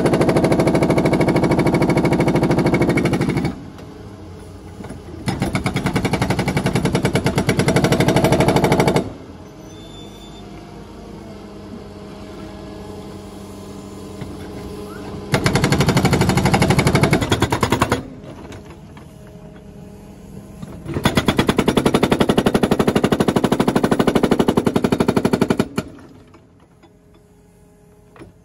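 Hydraulic breaker hammer on a Menzi Muck M545x walking excavator pounding concrete in four runs of rapid blows, each a few seconds long. Between the runs the excavator's engine can be heard running on its own.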